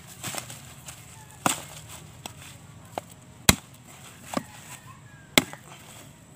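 Machete blade chopping into a husked sprouted coconut: about seven sharp knocks at uneven intervals, the loudest about a second and a half in, halfway through and near the end.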